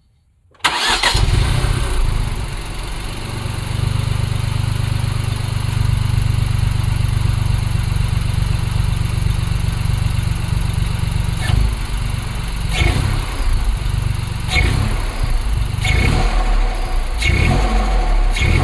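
Ford Fiesta ST mk8's 1.5-litre three-cylinder turbo engine starting up, then idling steadily. From about two-thirds of the way through it is revved in about six short blips, each followed by turbo flutter as the throttle shuts, heard through a Ramair direct air intake filter.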